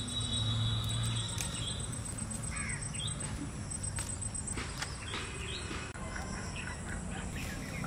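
Outdoor rural ambience with scattered short bird calls and chirps over a steady background.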